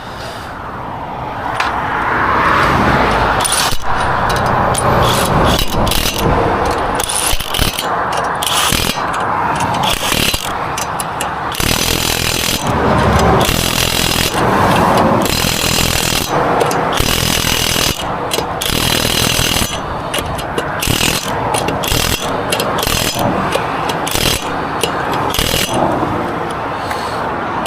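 Impact wrench hammering on and off in repeated bursts, running lug nuts on a car's spare wheel.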